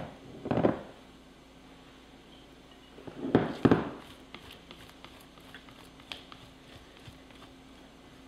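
Silicone spatula scraping thick cake batter out of a glass mixing bowl and dropping it into a glass baking dish: a short scrape just after the start, a louder pair of scrapes about three and a half seconds in, then faint light taps.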